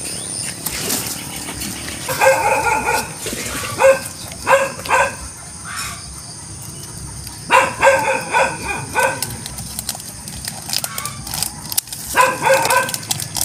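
Dog barking in quick runs of short, high-pitched yaps, with four bursts a few seconds apart.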